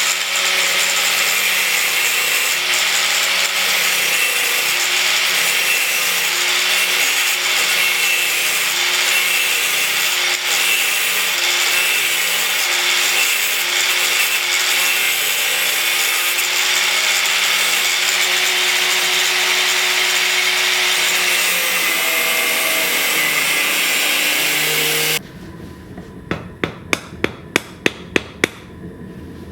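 A loud, steady rushing noise with a low hum under it, from forge-shop equipment, cuts off suddenly about 25 seconds in. Hammer blows on hot steel then ring out, a few a second and coming faster.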